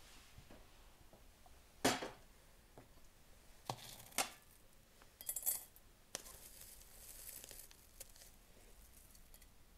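China knocking and clinking on a wooden table: a sharp knock about two seconds in, a few lighter knocks, then a ringing clink as the ceramic tea infuser is handled in the teapot. Near the end, fingers rustle and crackle through dried herbs in a plastic tub.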